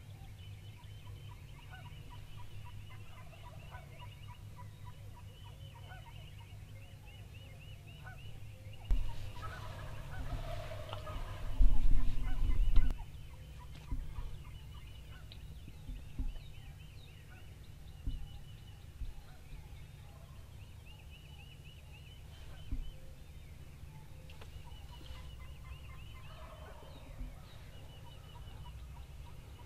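Rio Grande wild turkey gobbler gobbling several times, loudest from about nine to thirteen seconds in, with a fainter gobble near the end.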